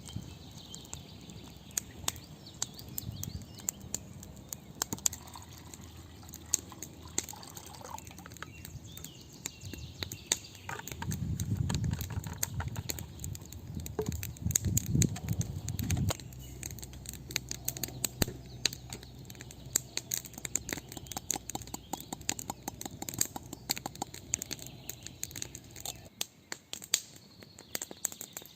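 Wood campfire crackling, with many irregular sharp pops and snaps throughout. A louder low rumble comes in about two-fifths of the way through and lasts several seconds.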